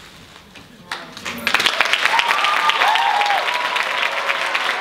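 After a short lull, audience applause breaks out about a second and a half in, with cheering and whoops over the clapping.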